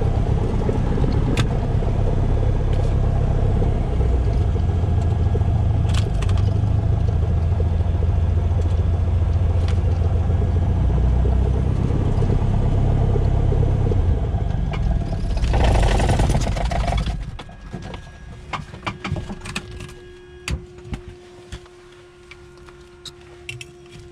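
Cessna 172S's four-cylinder Lycoming engine running steadily, swelling briefly and then stopping about seventeen seconds in: the engine being shut down. Afterwards a scatter of clicks and a faint steady hum.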